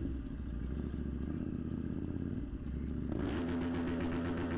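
Motorcycle engine idling with low street noise. About three seconds in the sound shifts to a brighter, steadier engine hum.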